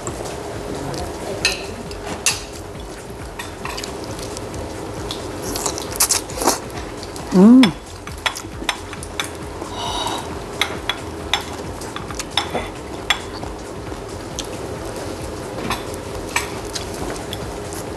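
Close-up eating sounds: chewing and mouth noises with many small clicks of a spoon and fork against plates and a glass bowl. About seven and a half seconds in, a short rising pitched sound is the loudest thing.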